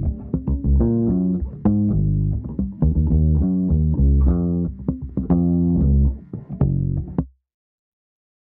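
Instrumental background music led by plucked bass guitar with guitar, a run of short notes that stops abruptly about a second before the end, leaving silence.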